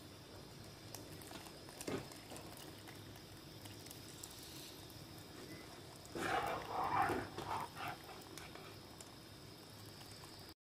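Milk being poured into a pan of mashed mango, faint and steady. About six seconds in comes a louder, uneven sound lasting under two seconds, probably from elsewhere.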